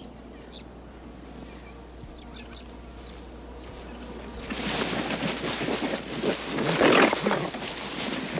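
Lions growling and snarling over a young warthog, a lioness and her cubs at the kill. The first few seconds are only faint background, then the rough growling starts about halfway and is loudest near the end.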